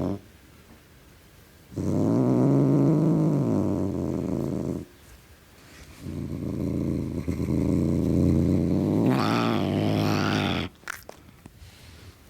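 Domestic cat growling: two long, low, drawn-out growls with a pause between, the second turning higher and harsher near its end.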